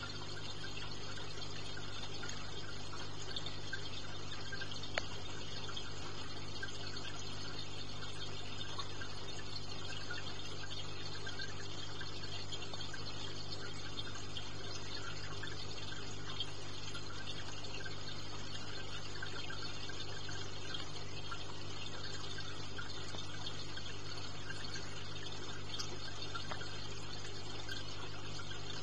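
Aquarium filter and pump running steadily: a low electrical hum under a constant sound of running water. One small tick about five seconds in.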